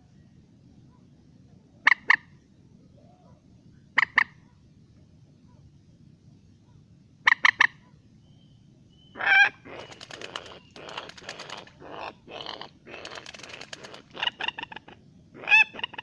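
Common moorhen calling: short, clipped double and triple calls a couple of seconds apart, then from about nine seconds in a denser run of harsh, rapid calls.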